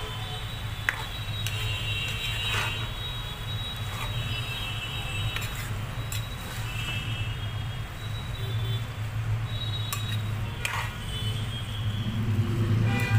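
Metal ladle stirring and scraping a thick eggplant and onion mixture in a non-stick frying pan, with scattered clicks and short squeaks of metal on the pan, over a steady low hum.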